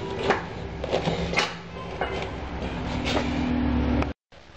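Metal knocks and clanks from the steel mould of a chalk-making machine as it is worked by hand, over a low steady hum. A steadier grinding tone comes in a little before the end and cuts off suddenly.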